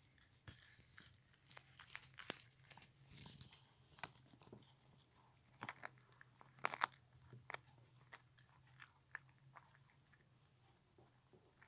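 Small dog chewing and gnawing a dry chew treat: faint, irregular crunches and bites, with the loudest cluster of crunches about seven seconds in.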